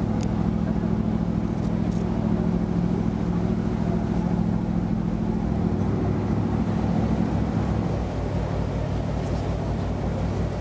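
Tour boat's engine running steadily with a low hum. About eight seconds in its note dips, leaving a lower, even pulsing.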